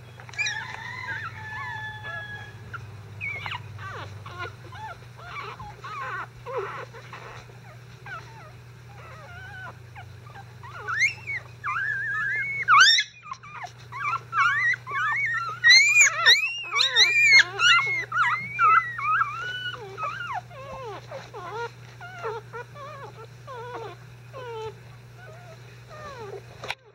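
Five-day-old Icelandic Sheepdog puppies whimpering and squeaking: many short, high cries that rise and fall in pitch, busiest and loudest in the middle, the pups fussing after being disturbed. A steady low hum runs underneath.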